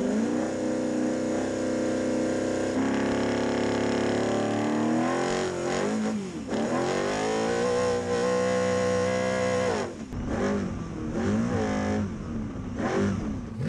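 Six-litre engine of a Geiser Brothers trophy truck under full throttle from the race start, its pitch climbing for about six seconds, dipping briefly and climbing again. It holds steady, then drops off sharply about ten seconds in and revs up and down over the rough ground.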